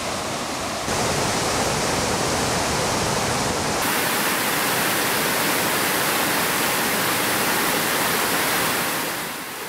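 Rocky mountain stream rushing over boulders in small rapids, a steady rushing water noise. It gets louder about a second in, brighter about four seconds in, and eases off near the end.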